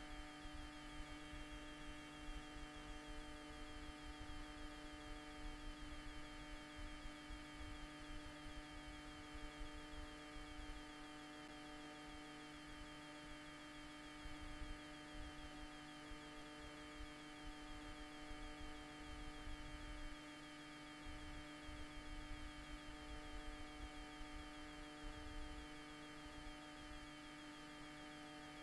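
Steady electrical hum made of several fixed tones, one of which cuts in and out every few seconds, with a faint fast buzz higher up and an uneven low rumble underneath.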